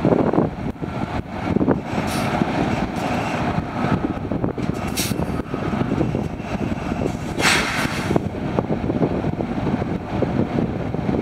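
Steady low rumble of a heavy truck idling, rough with wind on the microphone, with a few short hisses of air about two, five and seven and a half seconds in.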